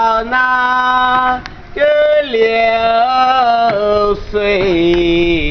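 A boatman singing unaccompanied as he rows: one man's voice holding long, steady notes that step up and down in pitch, with a short breath about a second and a half in.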